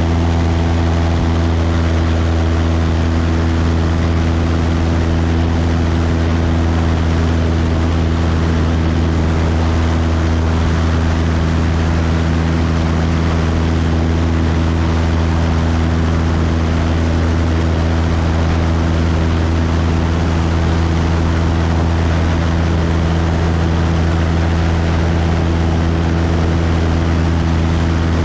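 Cessna 172's piston engine and propeller running at a steady cruise setting in flight, giving a loud, even drone that does not change.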